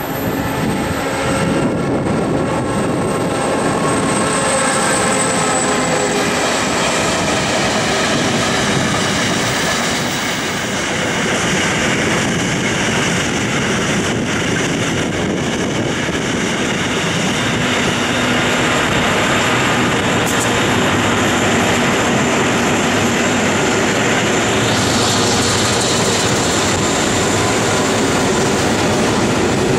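Diesel-electric locomotives working hard as they haul a loaded coal train up a grade, a steady heavy engine drone, with loaded coal wagons rolling past on the rails.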